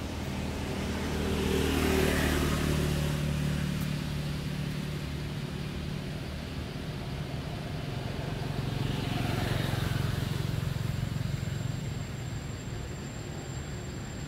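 Motor vehicle engines passing by over a steady low engine hum, swelling and fading twice: once a couple of seconds in and again past the middle.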